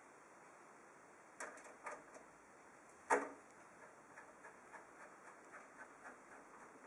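Screwdriver driving the motherboard's mounting screws into the case standoffs: a few sharp clicks, the loudest about three seconds in, then faint small ticks about three a second.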